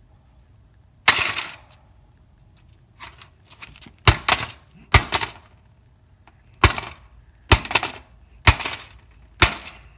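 Plastic and sheet-metal casing of a DirecTV satellite receiver cracking under repeated blows as it is smashed. One sharp crack about a second in, a few light clicks, then six more blows roughly a second apart from about four seconds in.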